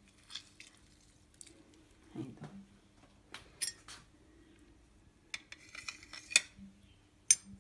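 Metal spoon clinking and scraping against the clear plastic bowl of a food chopper as harissa paste is scraped off it: a scattering of light clinks and taps, the sharpest near the end.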